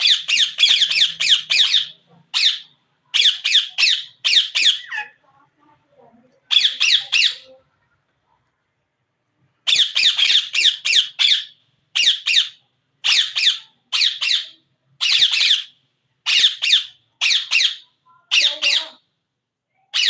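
A parakeet squawking loudly and harshly in quick runs of short calls, with a pause of about two seconds near the middle.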